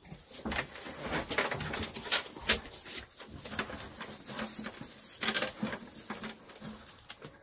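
Dry hay and straw rustling and crackling as a dog roots and paws through it, in irregular bursts that are loudest about two seconds in.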